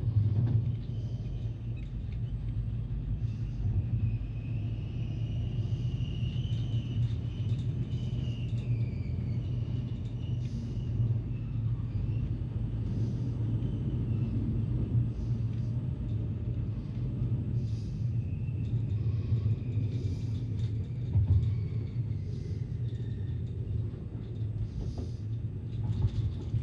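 Rhaetian Railway metre-gauge train running on the rails, heard from the front of the train: a steady low rumble with occasional short clicks. A faint high wheel squeal rises and falls twice.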